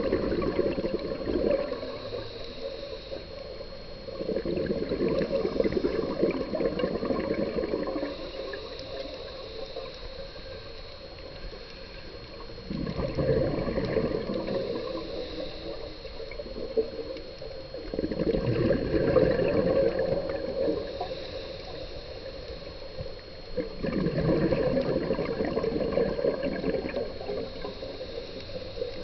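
Scuba diver breathing through a regulator underwater: long bursts of exhaled bubbles gurgling, one every several seconds, with quieter inhales between. A faint steady high whine runs underneath.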